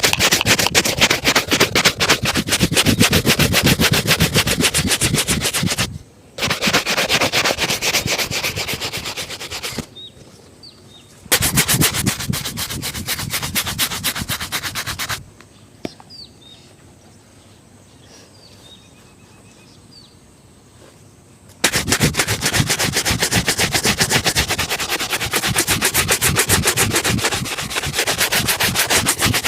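A brush scrubbing a shoe in fast back-and-forth strokes during a shoe shine, in four long spells with short pauses between them.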